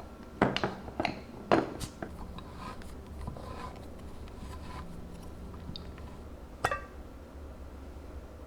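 Kitchenware being handled: a quick run of sharp clinks and knocks in the first two seconds, quieter clattering after, and one more sharp knock near the end.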